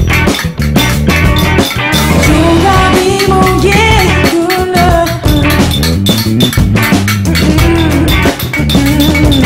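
Background music with a steady drum beat; a melody line comes in about two seconds in.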